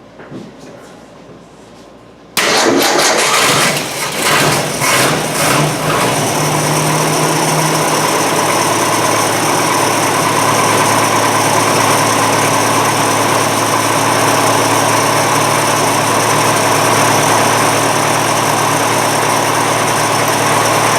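Carbureted car engine, started on a shot of brake or carburetor cleaner, catches suddenly about two seconds in. It runs unevenly and surges for a few seconds, then settles into a steady, loud run. The engine needs a carburetor overhaul and has to be primed to start.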